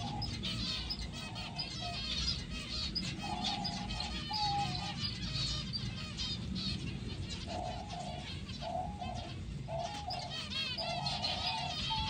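A busy chorus of zebra finches chirping throughout, with short flat coos of diamond doves repeated in pairs and runs, over a low steady background rumble.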